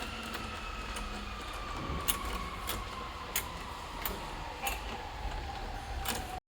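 Metal clicks of a spanner working the bolts that clamp an awning bracket onto a roof bar, coming about every half second to second, over a faint tone that slowly falls in pitch. The sound cuts off abruptly near the end.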